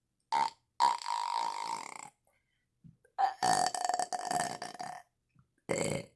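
A woman burping on command: a short burp, then two long drawn-out burps of more than a second each, and another starting near the end.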